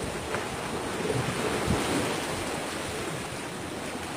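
Wind over open sea and the wash of waves, with wind buffeting the microphone.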